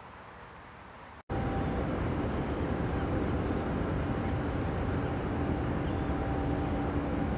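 Steady low mechanical drone with a constant hum, starting abruptly about a second in after a faint quiet background.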